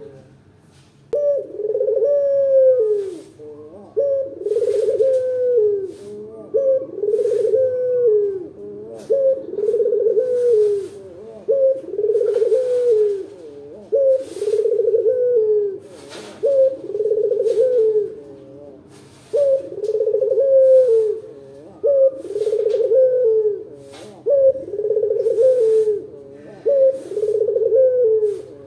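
A caged collared dove (Indonesian puter) coos over and over. The loud, deep, wavering coos begin about a second in and come roughly every two seconds, more than a dozen of them.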